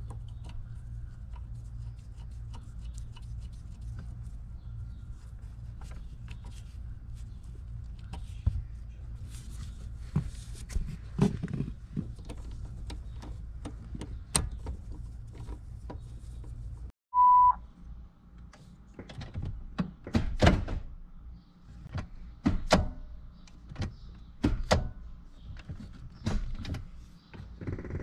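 Clicks and light metallic knocks from hand tools working a socket on the Ford Grand Marquis' gear-shift linkage bolt, over a steady low hum. About two-thirds of the way through there is a short beep, followed by a run of sharper, louder knocks at irregular intervals.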